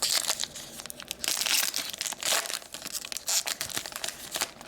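Foil trading-card pack wrapper crinkling and tearing as it is ripped open and handled, in dense rustling bursts that are loudest mid-way.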